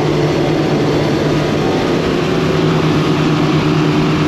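Twin outboard motors pushing a Cobia 350 center console at cruising speed: a steady engine hum under the rush of wind and water, unchanged throughout.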